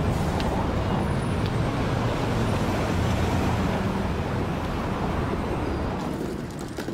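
City street traffic: cars and a pickup truck running and passing, with a steady low engine hum under the road noise. It eases off a little about six seconds in.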